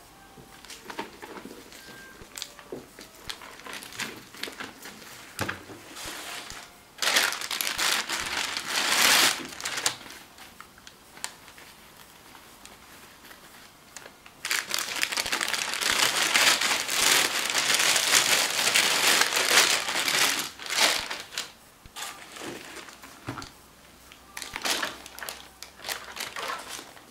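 Clear plastic wrapping crinkling and rustling as hands handle a leather chain bag, in two louder, longer stretches (one about a quarter of the way in, a longer one through the middle) with lighter rustles and crackles between.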